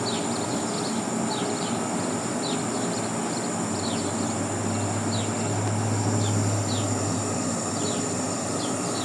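Steady outdoor background noise with short, high, falling chirps repeating irregularly, about one or two a second. Under it runs a low hum that swells for a couple of seconds about five seconds in.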